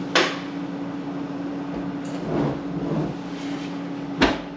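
A removed refrigerator door being handled and turned around: a sharp knock just after the start and another near the end, with softer knocks and rubbing between, over a steady low hum.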